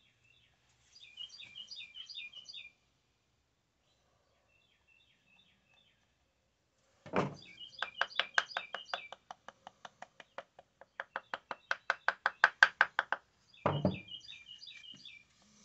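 Wooden parts of a turned cedar birdhouse knocking together: a thump, then a fast, even run of light taps, about seven a second, and another thump near the end. A bird chirps a short repeated phrase near the start and again near the end.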